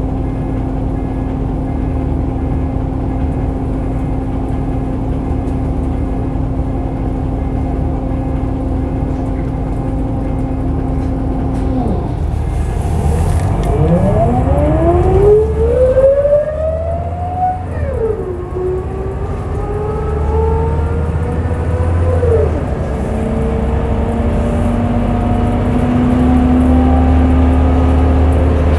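Scania L94UB bus with its engine running and a steady hum. About halfway through it pulls away, and its ZF automatic gearbox gives a loud whine that rises in pitch through each gear and drops back at two upshifts.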